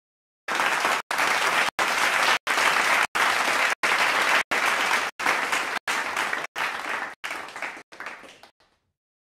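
Applause sound effect playing as the correct quiz answer is revealed, cut by short gaps about every two-thirds of a second and fading out near the end.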